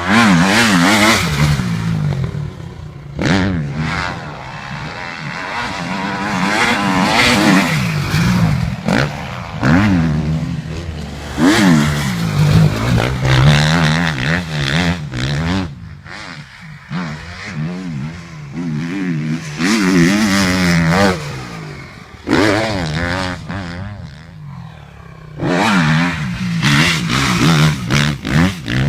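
Motocross motorcycle engines revving hard, their pitch rising and falling again and again as the bikes accelerate and shift. The sound fades briefly twice in the middle, between bursts of revving.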